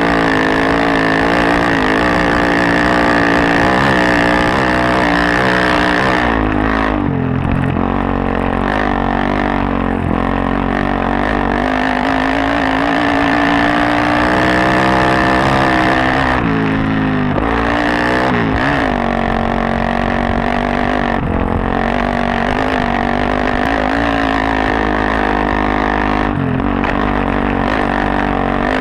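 Suzuki DR-Z400S dirt bike's single-cylinder four-stroke engine, big-bored to 440 with a full Yoshimura off-road exhaust, running hard under load off-road. Its note rises and falls with the throttle and drops briefly a few times as the throttle is closed.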